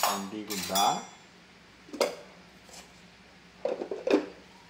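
Kitchen pot and metal utensils clinking and knocking: a sharp clink about two seconds in and a short run of knocks near the end.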